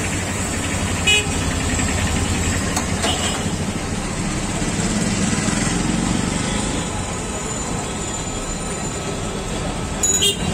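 Steady street traffic noise with car horns, under milk tea bubbling and foaming as it boils over in a red-hot clay cup, with a few light clicks of the metal tongs.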